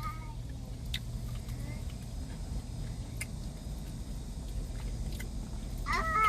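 Car idling, heard from inside the cabin as a steady low hum, with a few faint clicks.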